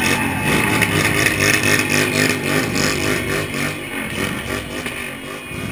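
Motorcycle engines running and revving close by.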